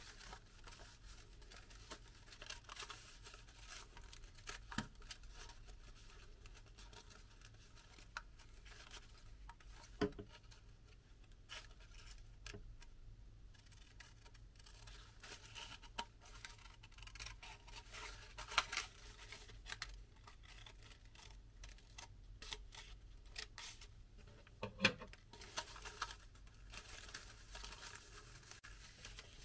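Scissors snipping through folded paper in scattered, faint cuts, with the paper rustling as it is handled and folded near the end.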